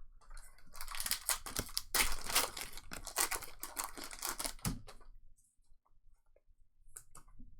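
Foil wrapper of a trading card pack being torn open and crinkled, a dense crackle that stops about five seconds in, followed by a few light clicks.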